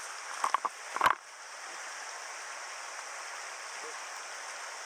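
Steady rush of a mountain river's flowing water, with a few short sharp knocks in the first second or so, the loudest just after a second in.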